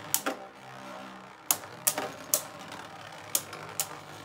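Two Beyblade Burst spinning tops whirring in a plastic stadium and clashing, with about six sharp clacks as they hit each other and the stadium wall.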